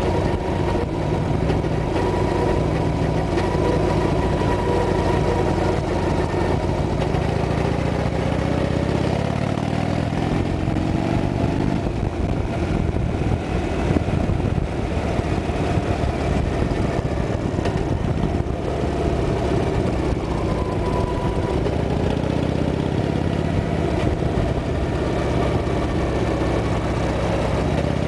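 Harley-Davidson Sportster's air-cooled V-twin engine running on the move, heard from the rider's seat, its pitch rising as it accelerates about ten seconds in and then holding steady.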